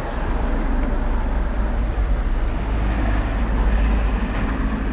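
A motor vehicle running close by: a steady roar with a faint engine hum, loudest in the low rumble.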